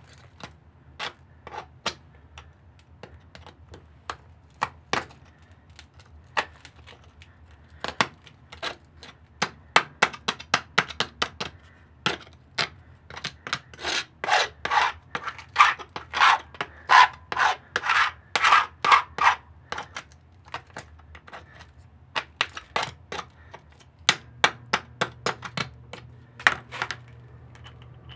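Metal scraper blade chipping and scraping cured anchoring epoxy off a concrete floor around a threaded-rod anchor. Scattered sharp scrapes at first, then a run of quick strokes, several a second, in the middle, then scattered strokes again near the end.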